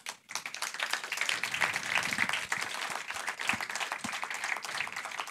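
Audience applauding, the clapping starting a moment in and continuing steadily.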